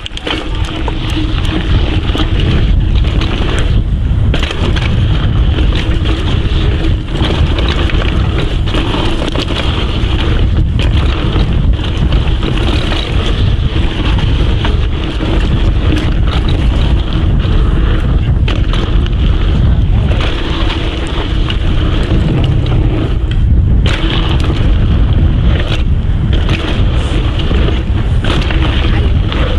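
Rocky Mountain Thunderbolt mountain bike riding fast down a dirt singletrack: a steady rush of wind on the action-camera microphone and tyres rolling over dirt and roots, with frequent knocks and rattles from the bike over bumps.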